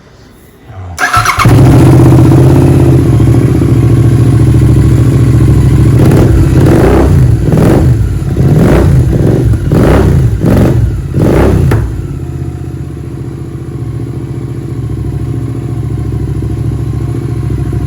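Royal Enfield Continental GT 650 parallel-twin engine, fitted with a K&N performance air filter, starting about a second in and idling. It is then revved in a quick series of about half a dozen blips before settling back to a steady idle.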